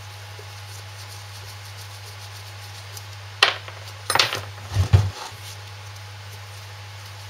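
A sharp metallic click, then a brief clatter of metal and a dull knock on the bench, as the front dust cover comes off a Lister D crankshaft housing, over a steady low hum.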